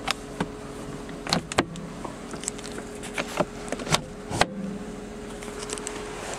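Sharp clicks and knocks of the BMW Z3's soft-top header latches being worked by hand, about eight in all, over a steady hum that stops shortly before the end.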